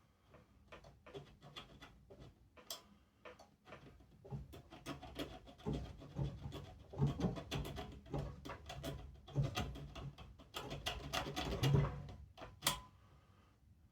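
A points file rasping back and forth on an old Briggs and Stratton's breaker points, filing corrosion off the contacts, in irregular scratchy strokes with small knocks. A sharp click near the end.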